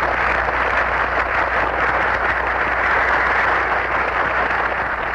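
Audience applauding: many hands clapping in a steady, dense patter that eases slightly near the end, over a steady low hum.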